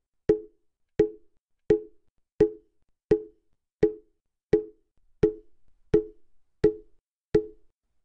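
Mokugyo, the hollow wooden fish drum of Buddhist temples, struck with a padded beater at a slow, even pace of roughly one hollow knock every 0.7 seconds, eleven strokes in all. Each knock rings briefly and dies away before the next.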